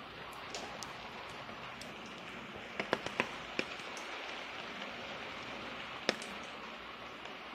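Steady rain falling, with a few sharp, close drop impacts: a cluster of four about three seconds in and one more about six seconds in.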